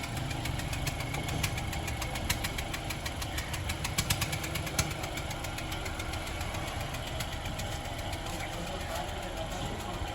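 Turbocharged Honda Civic engine running with a rapid, irregular ticking over the engine note, sharpest about midway. This is the abnormal engine sound being diagnosed on a nearly new car.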